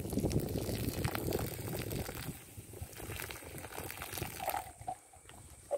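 Hot water poured from a small metal pot splashing onto rocks and gravel: cooking water drained off boiled clams. The pour is heaviest for the first two seconds or so, then thins to a lighter trickle.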